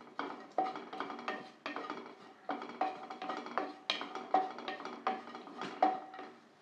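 Wooden spatula stirring dry-roasting kalpasi (black stone flower) in a nonstick kadai, knocking and scraping against the pan about three times a second, each stroke leaving a short ring from the pan.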